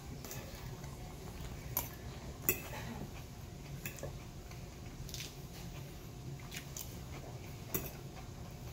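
Metal fork clinking and scraping against a plate as salad is speared, about six sharp clinks with the loudest about two and a half seconds in, and chewing between them.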